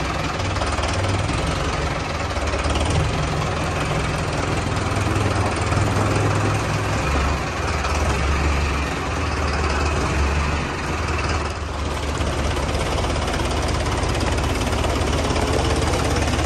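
Diesel tractor engine running at low revs; its low note rises and falls a little a few times as the tractor is moved into place.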